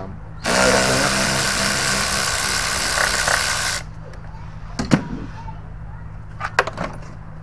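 Power ratchet spinning out a 10 mm bolt on a car's air box. It runs for about three seconds, starting and stopping abruptly, followed by a few sharp clicks.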